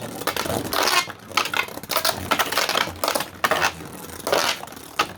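Two 3D-printed Beyblade spinning tops clattering and scraping against each other and the stadium walls, a string of irregular sharp clicks and knocks.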